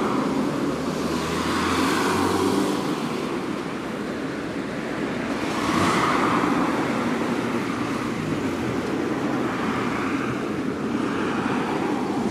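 Steady road traffic, with several cars swelling past and fading away.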